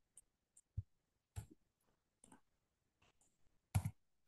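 A few faint, scattered clicks of a computer mouse and keyboard, with a quicker, louder pair near the end.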